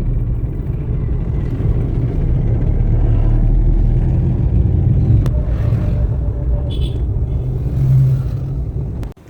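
Steady, loud low rumble of a motor vehicle on the road. It cuts off suddenly near the end.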